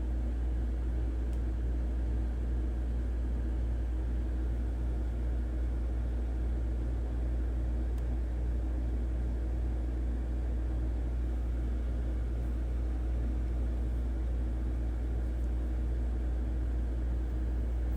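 A steady low mechanical hum, unchanging throughout, with no distinct clicks or knocks.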